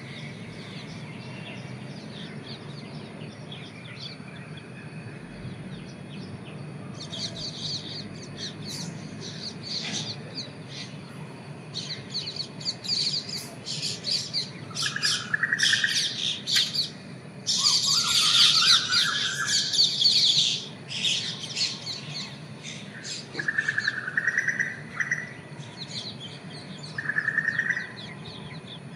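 Several birds calling. Short high chirps come thick and fast in the middle, with a few longer, lower calls between them, over a steady low background hum.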